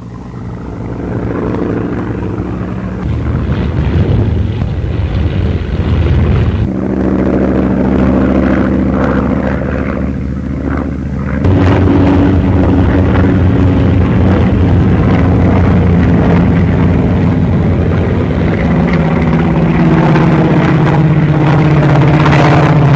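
Focke-Wulf Fw 190's BMW 801 radial engine droning in flight, a steady propeller-engine hum. It builds over the first few seconds, then changes pitch and loudness abruptly three times, about three, seven and eleven seconds in.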